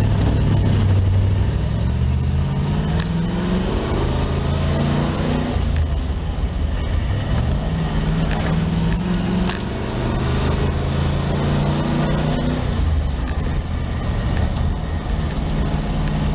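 A 1949 Ford F1 pickup driving under power on its swapped-in 351 Windsor small-block V8. The engine note rises and drops back several times as the truck accelerates, with steady wind and road noise.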